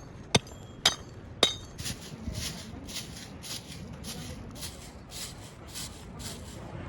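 Three sharp metallic clinks, then a steady rhythmic scraping or swishing, a little under three strokes a second.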